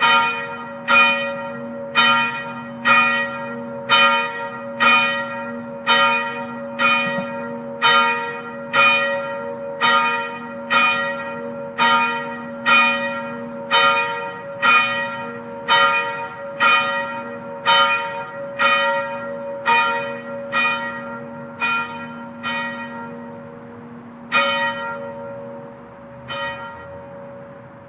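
A single church bell tolling, struck about once a second with the same note each time, its ring humming on between strikes. Near the end the strikes slow to two last, spaced-out blows, and the ring fades away.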